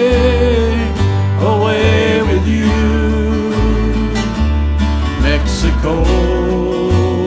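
Country song with acoustic guitar and a walking bass line under a sung vocal line.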